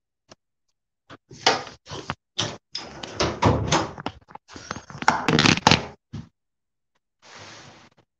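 Handling noise of a phone being moved and set down: a run of knocks, bumps and clatters, then a short soft hiss near the end.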